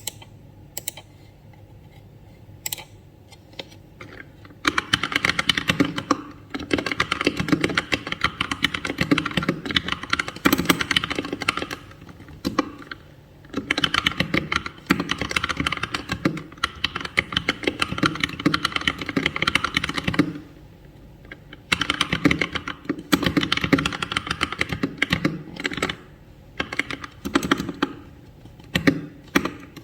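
Plastic-framed Keychron K2 mechanical keyboard with brown switches being typed on fast: a few single key presses at first, then about four seconds in, dense runs of keystrokes lasting several seconds each, broken by short pauses.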